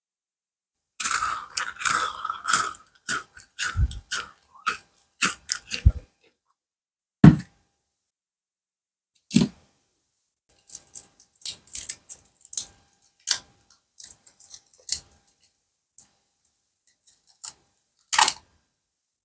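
Sweets being handled and put into a party platter: a flurry of sharp clicks and crackles, then a heavier knock about 7 and 9 seconds in and another near the end, with lighter scattered clicks between.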